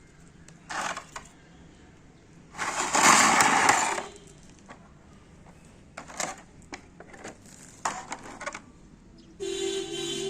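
Irregular knocks, clicks and scrapes of hardware being handled. The loudest is a harsh rasping noise lasting about a second and a half, starting between two and three seconds in, and a shorter noisy burst with a faint hum comes near the end.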